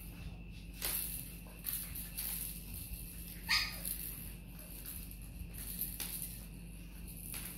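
Boston Terrier puppies at play: sharp clacks from hanging plastic toys being knocked, and one short high puppy yelp falling in pitch about three and a half seconds in, over a steady low hum.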